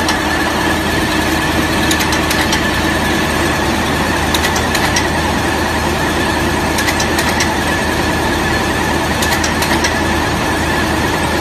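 Tissue making machine running steadily: a continuous mechanical noise with a held whine and hum, and short runs of rapid clicking about every two and a half seconds.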